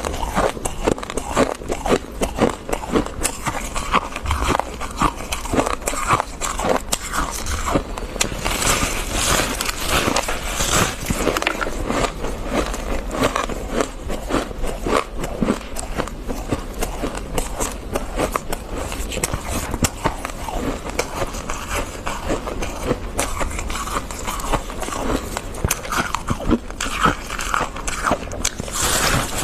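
Close-up crunching and chewing of fluffy freezer frost: a dense, unbroken run of crisp crunches, with brighter, hissier stretches about a third of the way in and again near the end.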